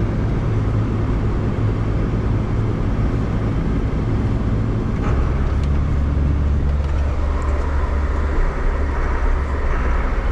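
Tractor diesel engine running steadily, heard from inside the cab while driving; about halfway through, its low drone drops in pitch.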